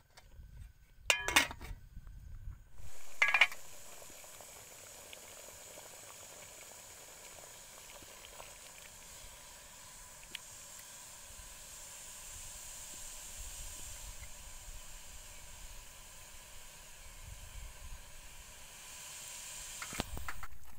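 Two sharp metal clanks about one and three seconds in, then the steady hiss of a portable canister gas stove's burner under an aluminium pot, with one faint clink about ten seconds in.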